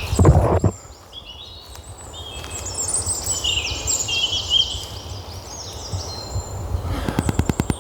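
Songbirds singing outdoors, many quick chirping calls overlapping, over a steady low rumble. A brief loud low thump on the microphone comes right at the start, and near the end a fast even pulsing begins, about ten beats a second.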